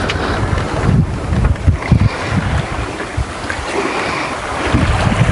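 Wind buffeting the camera microphone in uneven low gusts, over a steady rush of small waves slapping against the boat.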